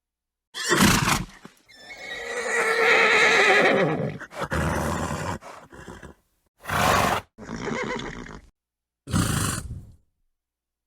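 A horse neighing in one long, wavering call, set between several short, breathy snorts. Dead silence between some of the sounds marks joins between separate recordings.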